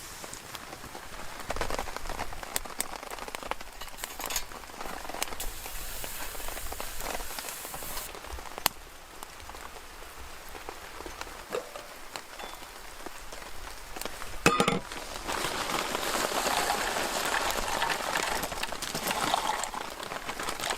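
Light rain falling, with scattered drops landing close by as sharp ticks and one louder knock about two-thirds of the way through.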